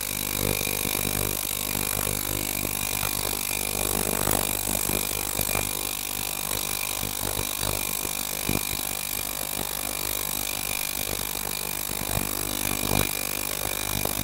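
Ultrasonic cleaning tank running with its transducers driving cavitation in the water, a steady high-pitched hiss and buzz over a low hum, with scattered faint crackles.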